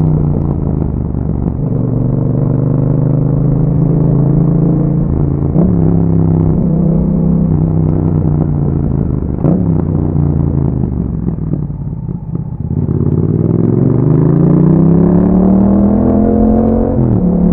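2021 Yamaha MT-07's parallel-twin engine through an Akrapovic exhaust, under way on the road. It runs fairly steadily at first and eases off briefly about twelve seconds in. It then climbs in revs for several seconds and drops sharply near the end, as at an upshift.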